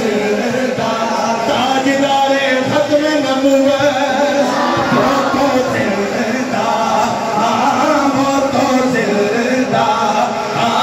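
A naat, Islamic devotional song, sung by a male voice into a microphone and played through a loudspeaker, with the gathering chanting along.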